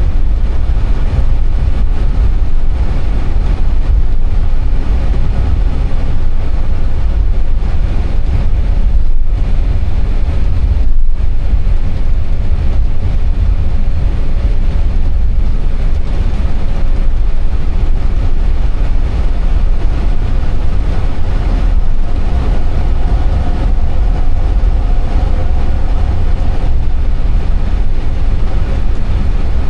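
Steady, loud low rumble of noise in an Airbus A320 cockpit, from the engines and the aircraft's motion, with no distinct events.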